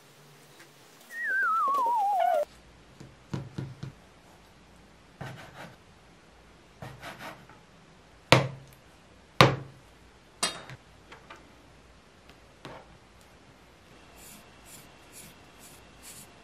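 A descending, wavering whistle sound effect about a second in, then a kitchen knife cutting a block of tofu on a plastic cutting board, with knocks of the blade on the board; the two loudest come a second apart past the middle.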